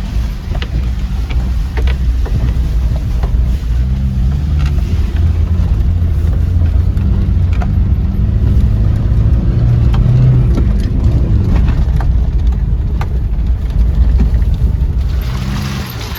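Gypsy 4x4's engine running under load off-road, a low note that rises and falls with the throttle, with scattered knocks and clatter from the vehicle. A rushing hiss comes up near the end.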